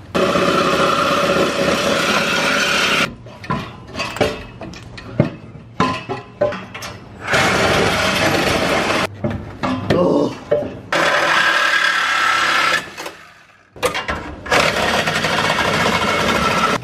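Cordless reciprocating saw cutting through a steel exhaust pipe to free a muffler for removal. It runs in several long runs, stopping briefly about three seconds in, nine seconds in and thirteen seconds in.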